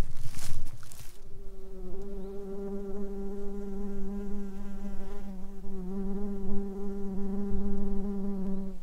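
A flying insect buzzing close by in one steady, even-pitched drone that starts about a second in. Before it there are footsteps and rustling on the forest floor.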